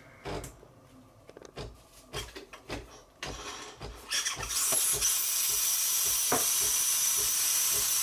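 Bluetti EB200P power station's cooling fans spinning up to a loud, steady hiss about four seconds in, with a faint high whine, as a load of about 1000 W comes on. A few soft knocks come before it.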